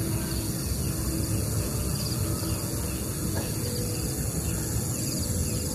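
Steady outdoor night ambience: a continuous low rumbling noise, with a faint high chirping repeating through it.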